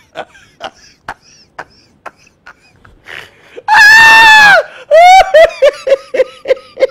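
A man laughing hysterically. Short, sharp gasps come about twice a second, then a loud, long, high-pitched shriek about four seconds in. It breaks into a quick run of laughs that fall in pitch.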